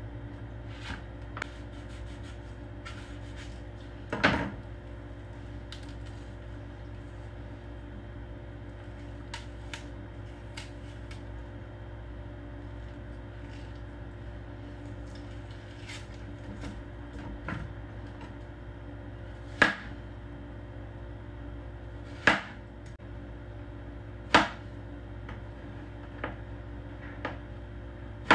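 Kitchen knife and hands working a dragon fruit on a plastic cutting board: scattered sharp knocks and taps of the blade and fruit on the board, several louder knocks in the second half, over a steady low background hum.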